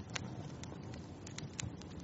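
Wood fire crackling in a fireplace: irregular sharp pops and snaps over a low, steady rumble of burning.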